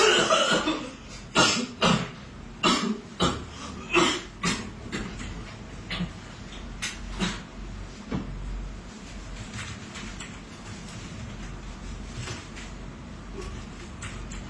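A person coughing repeatedly in short, loud coughs about every half second, then more sparsely and faintly after about five seconds.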